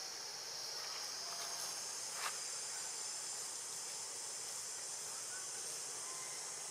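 Steady high-pitched drone of an insect chorus in forest, running on without a break, with one brief click a little over two seconds in.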